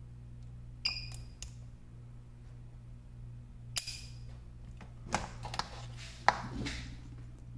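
PCB spot welder firing through hand-held copper needles to weld thin nickel strip onto thicker nickel strip on an 18650 cell: sharp snaps, each with a short high beep, about a second in and again near four seconds. Then clattering knocks as the needle leads are set down and the pack is handled, the loudest near the end, over a steady low hum.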